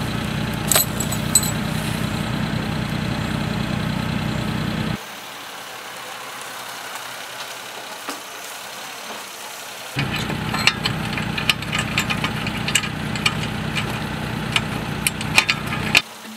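Vehicle engine idling steadily for about five seconds. After a quieter stretch it idles again, with scattered sharp clicks and knocks, and drops away near the end.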